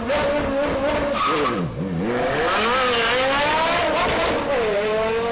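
Porsche Carrera GT's V10 engine revving hard: its pitch rises and falls with the throttle and gear changes. It drops sharply about two seconds in, then climbs steeply again.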